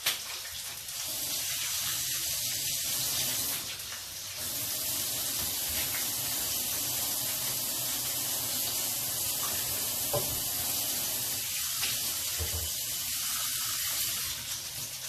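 Kitchen tap running into a stainless steel sink: a steady hiss of water that dips briefly about four seconds in and eases off near the end.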